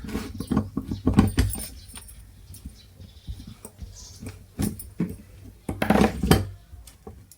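Irregular metallic clinks and knocks of tools and small metal parts being handled, with a few louder knocks about a second in and near the end.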